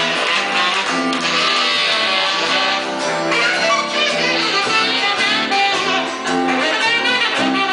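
A live band playing, with guitar to the fore.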